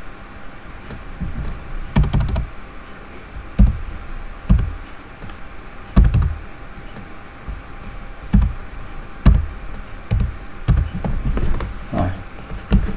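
Computer keyboard keys pressed one at a time, slowly and unevenly, as a short numeric code is typed in. About a dozen separate clicks, roughly a second apart.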